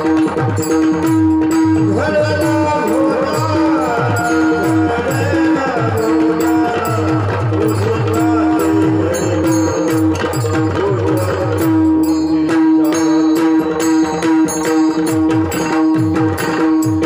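Devotional kirtan music: a steady held drone note under regular hand-drum strokes that fall in pitch, with quick high metallic strikes. A melodic voice-like line bends up and down through the middle, then the drum and drone carry on alone near the end.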